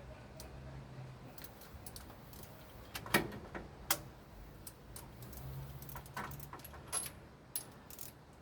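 Scattered metallic clinks and taps of a socket wrench and extension being handled while working to reach a spark plug, the loudest about three and four seconds in, over a faint low hum.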